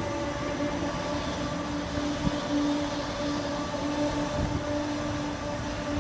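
Steady machine hum: a constant low drone over a rumble, with no change in pitch.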